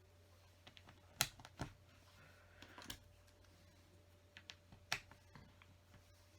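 LEGO plastic bricks clicking and tapping as pieces are picked up and pressed into place: a handful of scattered sharp clicks, the loudest about a second in and again near five seconds, with a faint rustle in between.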